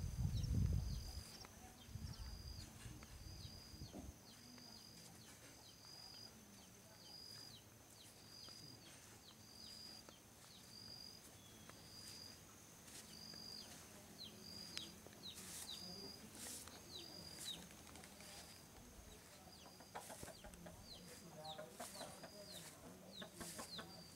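Faint farmyard ambience: a bird repeats a short, high call about once a second over a steady high whine, and a few hen clucks come in near the end. Low wind rumble on the microphone in the first few seconds.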